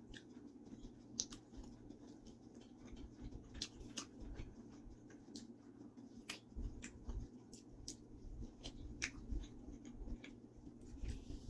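A person biting and chewing margherita pizza: scattered small crunches and wet mouth clicks, with low thumps, over a faint steady hum.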